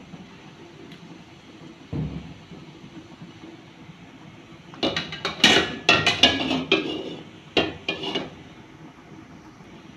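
Metal kitchenware clattering: a dull thump about two seconds in, then a run of sharp clanks and knocks lasting about three seconds.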